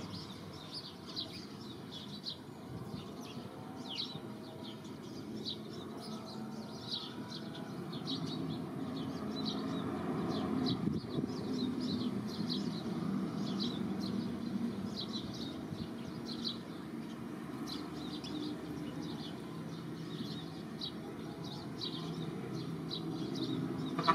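Small birds chirping, short high chirps repeating several times a second, over a low steady rumble.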